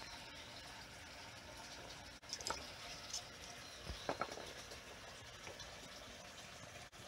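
A few brief scrapes and knocks, about two and a half and four seconds in, over a faint steady hiss: a large Japanese pond turtle being grabbed and handled, its shell and claws against a hand and a jar.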